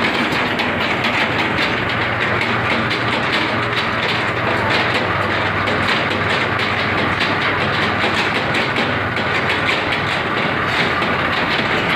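Mahindra 275 DI TU tractor's three-cylinder diesel engine idling with a steady, rapid clatter.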